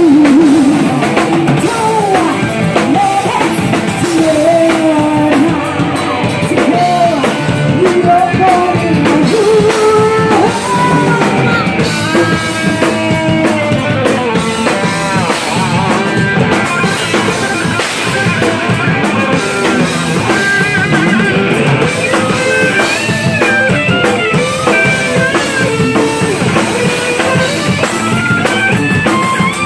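Live rock band playing loudly: distorted electric guitars, bass guitar and a drum kit, with a woman singing lead through roughly the first ten seconds, after which high melodic lead lines carry the tune.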